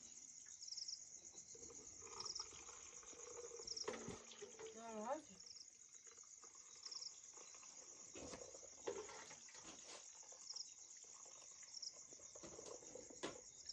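Night-time crickets: a steady high trill with a louder chirp repeating about once a second. A few faint knocks sound through it, and a brief voice about five seconds in.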